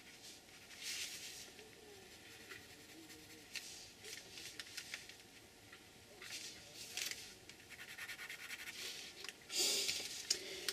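Faint scratching of a drawing tool on paper in short, irregular strokes, with a louder rustle or scrape near the end.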